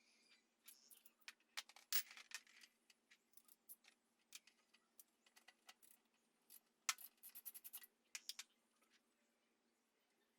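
Small metal parts and tools clinking and tapping as they are handled, in scattered light clicks with a quick run of clinks about seven seconds in.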